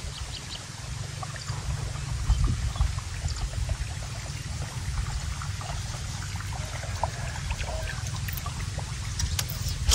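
Steady low rumble of wind buffeting the microphone, with faint, irregular small ticks over it.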